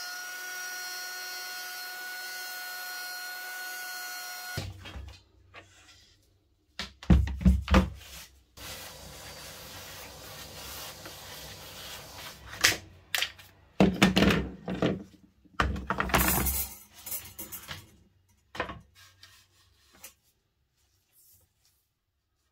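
Handheld plunge router motor running steadily and cutting off abruptly about four and a half seconds in. Then a low hum with irregular knocks and rubbing against wooden boards, the loudest thumps coming in clusters through the middle.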